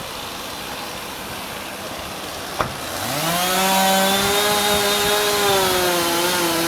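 Chainsaw throttled up about three seconds in and held at high revs, its pitch wavering slightly. Before that there is a steady hiss and a single click.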